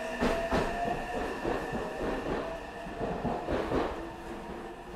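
Meitetsu 9500 series electric train running, heard from inside the passenger car: wheels clacking over rail joints with a steady whine underneath. It gets quieter toward the end as the train slows.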